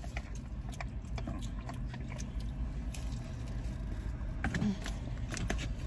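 A person chewing and biting into pizza, soft scattered mouth clicks, over a low steady hum.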